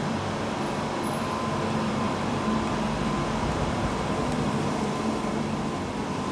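Steady mechanical hum of an Adtranz C801 light-rail car standing at the platform, with a faint steady whine running through it.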